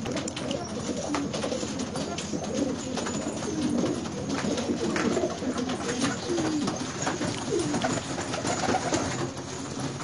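A flock of domestic fancy pigeons cooing, many overlapping low, wavering coos throughout.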